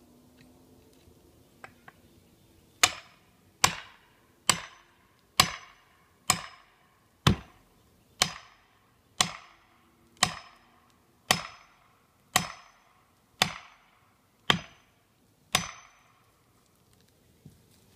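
A splitting maul being hammered into the felling cut of a pine tree as a wedge: fourteen sharp metal-on-metal strikes, about one a second, each ringing briefly. The blows drive the maul in to tip the tree over.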